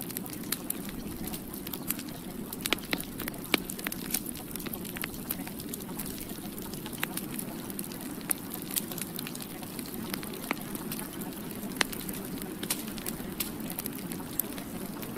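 A steady low noisy hum scattered with irregular sharp crackles and pops.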